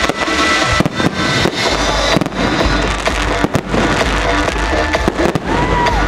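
Aerial fireworks going off in quick succession, many sharp bangs one after another, with music playing underneath.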